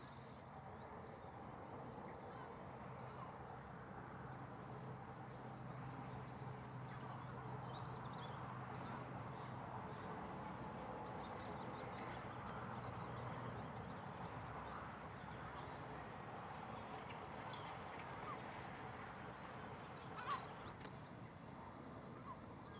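Fendt 724 tractor running faintly at a distance while ploughing, a low steady hum that fades in the second half. Birds give short, high calls over the field.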